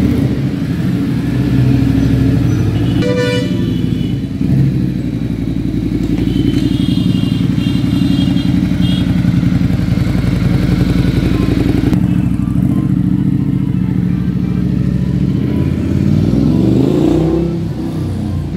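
Ducati Multistrada 1200S's L-twin engine, fitted with an aftermarket Arrow exhaust, running loud and deep at low revs, rising in pitch near the end as it revs. A horn toots briefly a few seconds in.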